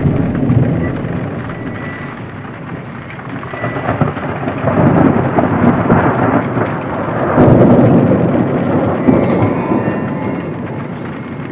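Thunderstorm: a steady wash of rain with thunder rumbling over it, swelling up about halfway through and again, loudest, a couple of seconds later.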